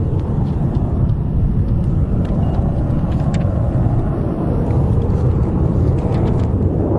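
Jet noise from a JF-17 Thunder fighter's single Klimov RD-93 turbofan: a loud, steady low rumble as the aircraft pulls up and rolls away.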